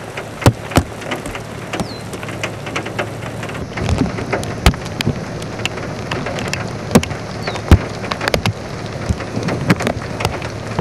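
Rain falling, with large drops tapping sharply and irregularly on a hard surface close to the microphone.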